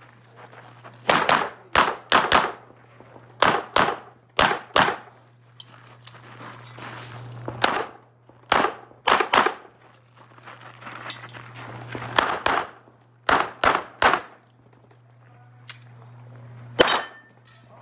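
Handgun fired in quick pairs of shots, the pairs separated by pauses of one to a few seconds, over a steady low hum.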